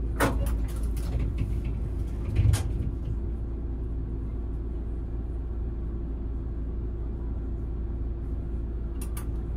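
Tram standing at a stop with its on-board equipment running: a steady low hum with a faint steady tone. A few clicks come near the start, and there is a heavier knock about two and a half seconds in.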